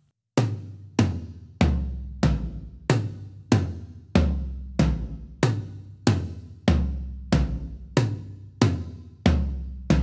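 Low-tuned tom-toms (12 and 14-inch rack toms, 16 and 18-inch floor toms) with coated Ambassador batter heads and clear Ambassador reso heads, struck one at a time. There are about sixteen evenly spaced single hits, some deeper than others as the floor toms are played. Each hit is warm and dies away quickly, a short sustain from the gel, the tape on the reso head and the engaged internal dampeners.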